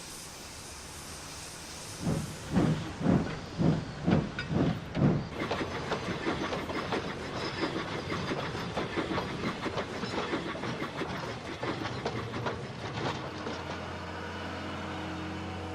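Steam locomotive hissing at rest, then pulling away with heavy exhaust chuffs about two a second that quicken into a fast, steady beat. Near the end a low steady engine hum comes in.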